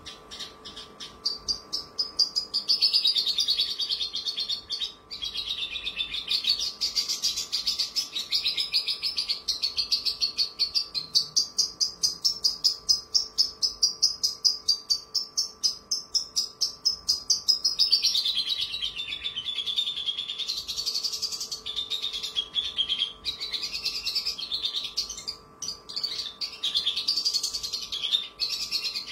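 Javan bush lark singing a long, fast, unbroken trill of high notes, its pitch wavering up and down.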